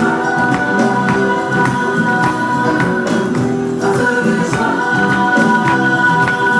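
Live gospel-style music: held chords and singing over a steady beat with tambourine.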